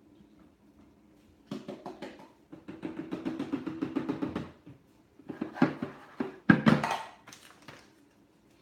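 Cocoa powder canister shaken and tapped over a plastic blender jar, a fast run of light taps for about three seconds. Then a few louder knocks with rustling as the powder is emptied in.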